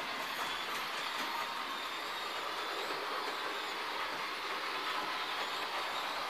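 HO-scale model trains, among them a Jouef 141 R locomotive, running on the layout's track: a steady whirr of small electric motors and wheels rattling on the rails.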